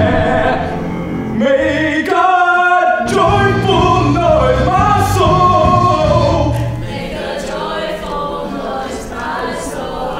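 Gospel-style show tune: the cast singing together over instrumental accompaniment, with a long held note about two seconds in and the music a little quieter in the second half.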